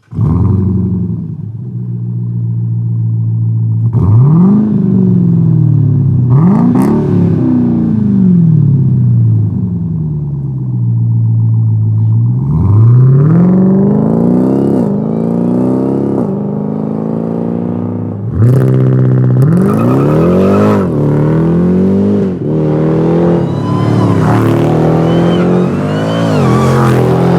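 Dodge Durango SRT V8 through an MBRP 3-inch cat-back exhaust with high-flow mufflers, idling with a deep steady note and then revving and accelerating several times, the pitch rising and dropping back with each pull.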